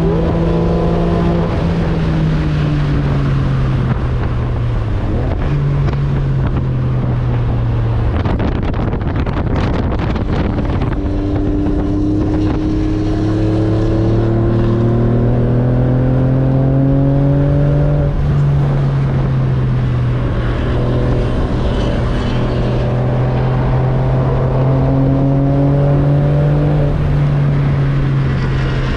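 Porsche 911 (996) Cabriolet's flat-six engine heard from the driver's seat under track driving. Its note sags and fades into wind and road noise for a few seconds, then climbs steadily under acceleration, drops at a gear change about two-thirds of the way in, and climbs again before levelling off.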